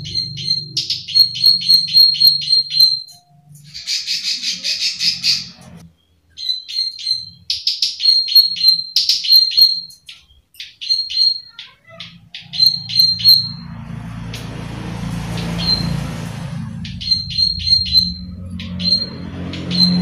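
Plain prinia (prenjak sawah) calling in runs of sharp, high 'klik' notes, about four a second, broken by pauses, with a short harsh buzzy rattle about four seconds in. A low hum runs under the calls in the second half.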